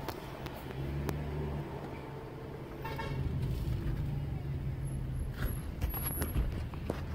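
Car engine and road noise heard from inside the car's cabin while driving slowly, a steady low drone, with a short beep about three seconds in.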